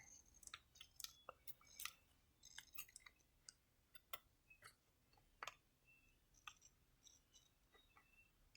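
Faint, scattered light clicks and taps of plastic parts being handled and pressed into place, as a part is fitted onto the top of an RC car.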